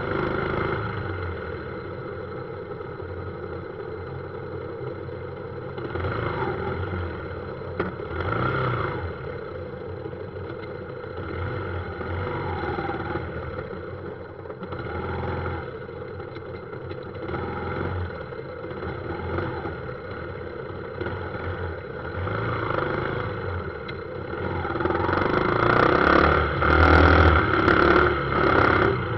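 A motorbike riding through city traffic. Its small engine runs and rises and falls with the throttle, mixed with the noise of nearby motorbikes and cars. It swells several times and is loudest for a few seconds near the end.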